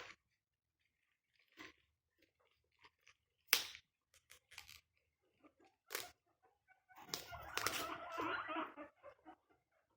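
Guinea pigs rustling and crunching in their enclosure, with a few sharp taps and scratches, then a denser stretch of crackly rustling about seven seconds in.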